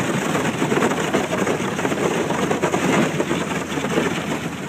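Thin spring lake ice breaking and grinding against the hull of a small aluminum boat as it pushes through under outboard power. A steady, dense crackling and crunching over the motor's running.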